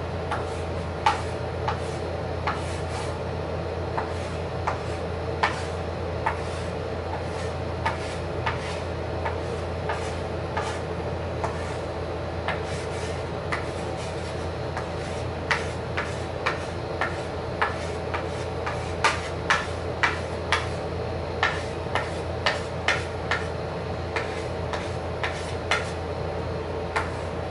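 A marker tapping and rubbing on paper over a wooden tabletop: irregular light clicks, coming more often in the second half, over a steady low hum.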